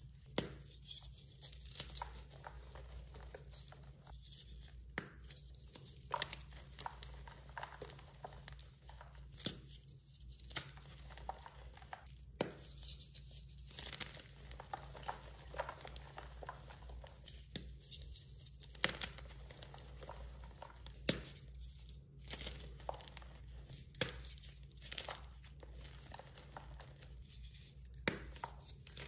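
Blocks of dyed gym chalk being crushed and crumbled by hand: crackling, crunching powder broken by frequent irregular sharp snaps as pieces break off.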